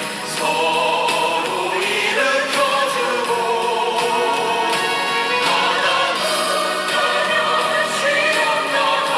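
Background music: a song with choir-like singing over a steady beat.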